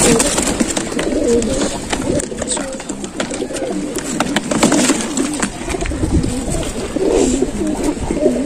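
Domestic pigeons cooing continually in a loft, many birds at once, with scattered clicks and rustles of cardboard as birds are pushed into a box.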